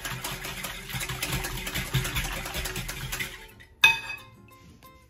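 A utensil stirring sugar into warm water and milk in a bowl, scraping and clinking against the bowl while the sugar dissolves. The stirring stops about three and a half seconds in and is followed by a single sharp clink, the loudest sound.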